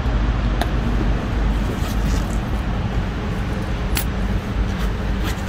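Low, steady rumble of street traffic, with a few brief clicks.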